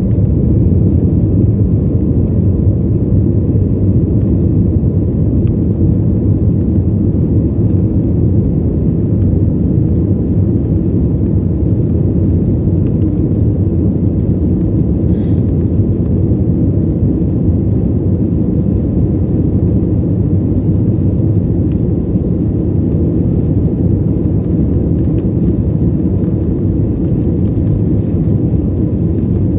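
Airliner engine noise during takeoff and climb, heard from inside the passenger cabin: a loud, steady low rumble.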